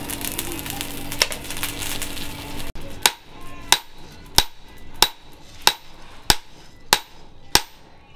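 A steady hum from the charcoal forge's blower, then, after a sudden cut about three seconds in, a hand hammer strikes the hot leaf-spring steel cleaver blade on a steel anvil block eight times, evenly at about one and a half blows a second, each blow ringing briefly.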